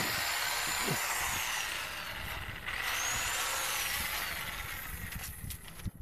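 Corded electric power saw cutting branches: the motor whines in two runs, easing off about halfway through and starting again, its pitch dropping during each run before it winds down near the end.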